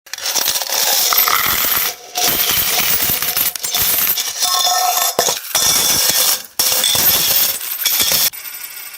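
Many metal coins pouring and falling onto a hard surface in a dense jingling clatter, in several runs with short breaks. Near the end the pouring stops and the last coins ring and settle more quietly.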